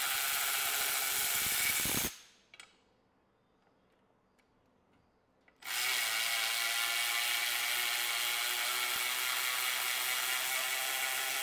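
Milwaukee M12 Fuel high-speed cordless ratchet spinning a nut along a bolt in a run of about two seconds. After a pause with a few light clicks, it runs again on a second bolt for about six seconds, the two bolts differing in thread quality.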